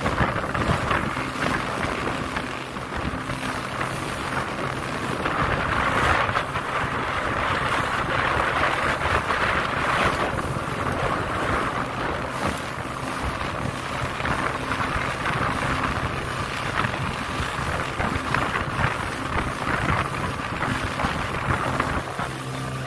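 Small motorboat's engine running steadily under way, a constant low drone, with wind buffeting the microphone in irregular gusts over it.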